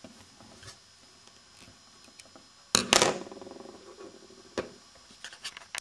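Small metal clicks and scrapes of a T-handle driver tightening the four cover bolts of a brass solenoid valve, with a sharp double knock that rings briefly about three seconds in, then a few more light clicks.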